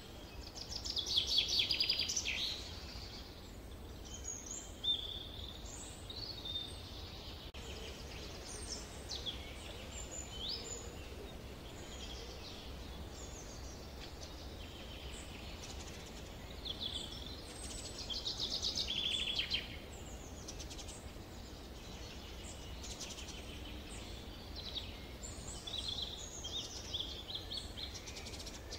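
Summer forest ambience: several songbirds singing and calling, short chirps and whistles mixed with rapid trills that come louder about a second in, again a little past the middle, and near the end. A steady low rumble sits underneath throughout.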